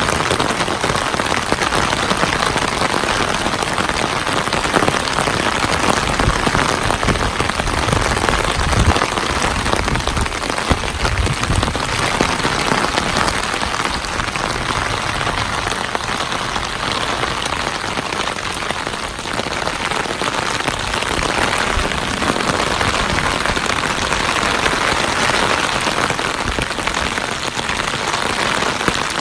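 Heavy downpour: rain falling hard in a steady, dense hiss.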